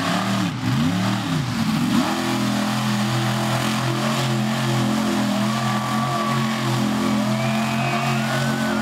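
Truck engine revving up and down several times, then held at a steady pitch as the truck slides through the dirt.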